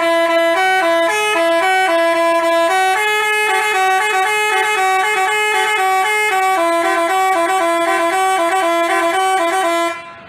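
Basuri telolet horn, a multi-trumpet bus horn, playing a quick tune of stepped notes in two voices at once. It cuts off abruptly near the end.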